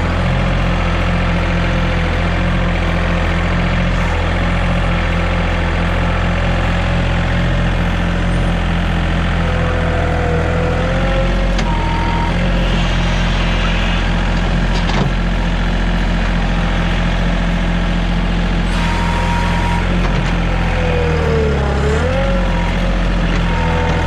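An engine running at a steady speed.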